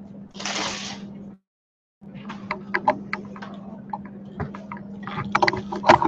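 Handling noise on the recording device: scattered clicks and knocks as it is touched and moved, getting busier toward the end, over a steady low hum. A short burst of hiss comes about half a second in, and the audio drops out to silence for about half a second around a second and a half in.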